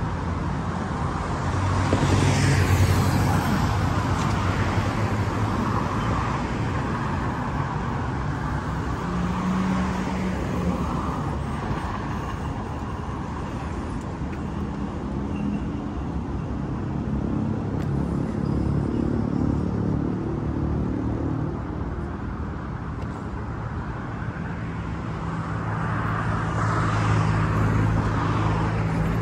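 Road traffic passing along a city street: car engines and tyre noise, swelling as vehicles go by about two seconds in and again near the end.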